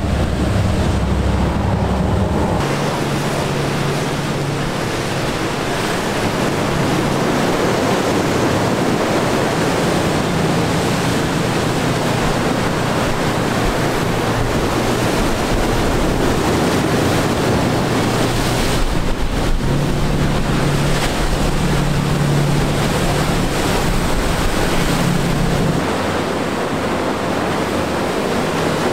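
Waves and wind noise with the steady low hum of large fishing boats' engines passing through choppy water.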